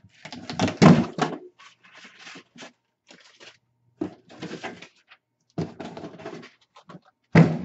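Cardboard shipping box being opened by hand: irregular scraping and rustling of cardboard and packing as the top is pulled open and the flaps handled, loudest about a second in, with a sharp rustle near the end.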